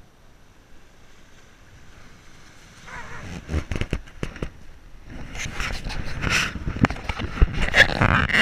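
Wind on the microphone with rubbing and knocking as a GoPro camera is handled. Faint at first, it grows louder with many short knocks after about three seconds.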